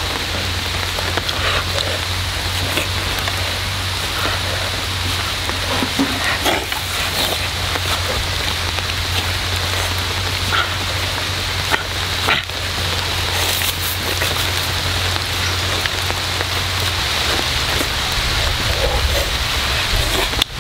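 Steady outdoor hiss with a faint high steady tone and a low rumble underneath, broken by a few light taps and scrapes as wooden sticks are pushed into loose soil.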